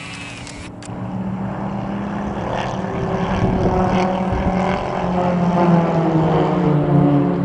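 Pilatus PC-9/A turboprop aircraft of the Roulettes flying their display: a propeller drone that grows steadily louder as the formation closes in, its pitch sliding a little.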